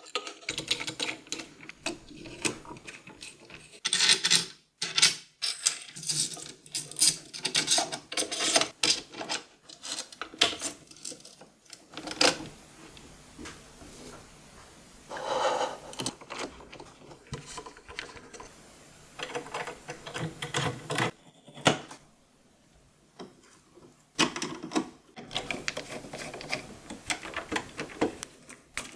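Hand tools and printer parts clicking, tapping and rattling in irregular bursts as a dual Z-axis kit is fitted to an Ender 3 V2 3D printer. There is a quiet stretch about three quarters of the way in.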